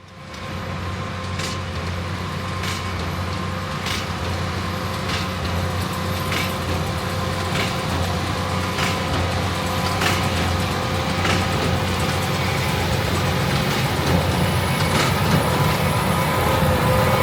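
Heavy farm machinery running steadily under a continuous engine hum, with a sharp knock repeating evenly about every second and a quarter.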